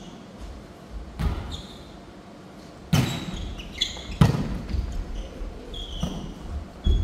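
A volleyball being hit back and forth in a rally: sharp smacks of hands on the ball, the loudest about three and four seconds in, echoing through a large gym. Short squeaks of court shoes on the wooden floor come between the hits.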